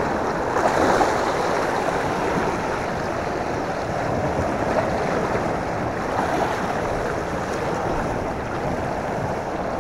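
Sea surf washing against a rocky shore, a steady rushing noise.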